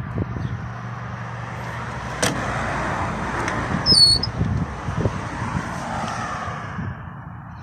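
A car passing by on the road: its noise swells and then fades away, with a single knock a little over two seconds in and a brief high squeak about halfway through.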